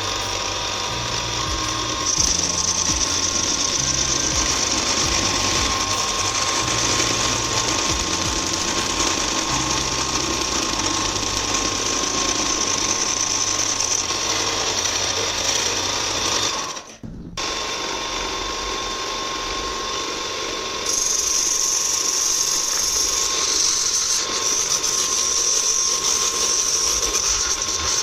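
Electric sewing machine motor running steadily as a converted power tool working plywood, a constant whine with hiss. It stops briefly about two-thirds of the way through, then starts again and runs louder near the end.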